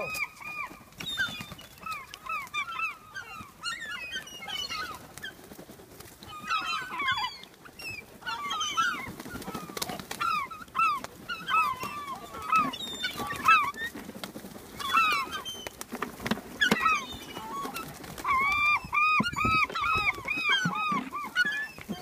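A flock of gulls calling over one another at a feeding: many short, repeated calls overlapping in clusters, with a dense burst near the end.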